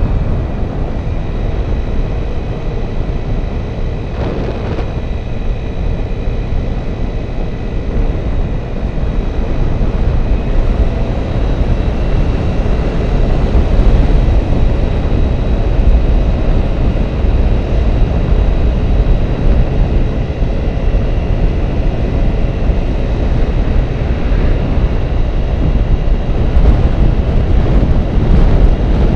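Wind buffeting a moving camera's microphone: a loud, steady low rumble with a rushing hiss above it, getting a little louder partway through.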